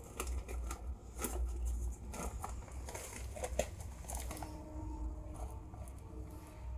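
Soft scattered clicks and rustles, with faint steady tones starting about four seconds in.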